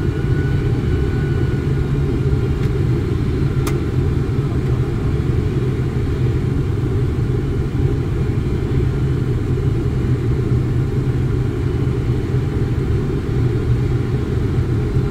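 Steady rumble of a Boeing 747 flight deck in flight: airflow and engine noise heard inside the cockpit, deep and unchanging. A single short click about four seconds in.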